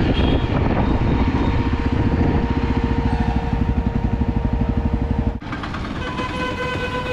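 Motorcycle engine running while riding, with wind noise on the microphone and a steady tone joining midway. About five seconds in, the sound cuts off abruptly to a quieter street-traffic sound with a held tone.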